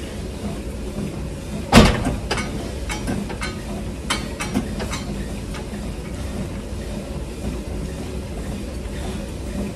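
Gym hip adductor/abductor machine clanking as it is set up and worked. One loud metallic knock comes a couple of seconds in, followed by a few lighter clicks and knocks, over a steady low rumble.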